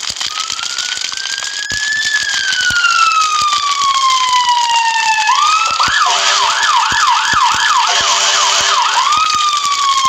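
Emergency-vehicle siren: a slow wail rises, then falls over several seconds. About five seconds in it switches to a fast yelp of about three quick up-and-down sweeps a second, then goes back to the slow wail near the end. A steady hiss with scattered clicks lies underneath.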